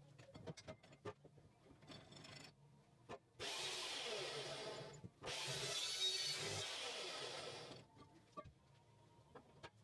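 MIG welder laying two short tack welds on steel tubing, each a steady crackling hiss that starts and stops abruptly, the first about one and a half seconds long and the second about two and a half. Light clicks and taps of handling the work come before and after.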